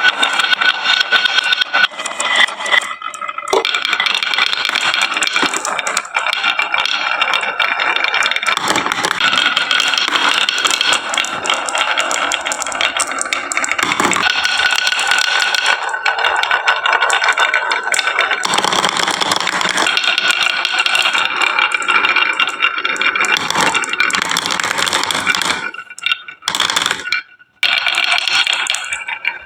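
Many marbles rolling and clattering down wooden marble-run tracks: a continuous dense rattle that briefly thins out and breaks off near the end.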